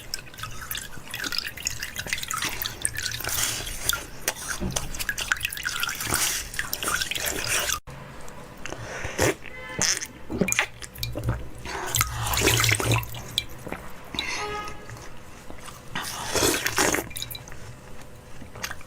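Wet eating sounds: a dense run of irregular smacking and slurping clicks, broken by a brief cut about eight seconds in.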